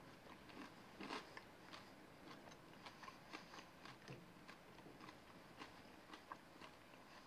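A person chewing a bite of freshly baked beer bread: faint soft crunches and mouth clicks, the loudest about a second in.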